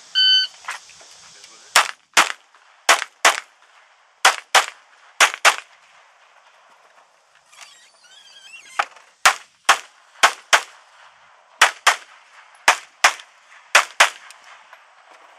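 A shot timer beeps once at the start of the string, then a Heckler & Koch P30L pistol fires quick double taps: four pairs over about four seconds, a pause of about three seconds, then about eleven more shots, mostly in pairs.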